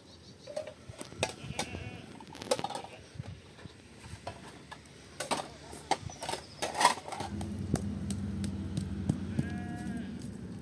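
Livestock bleating a few times, among sharp knocks and clatter, the loudest knock about seven seconds in. A steady low hum begins about seven seconds in.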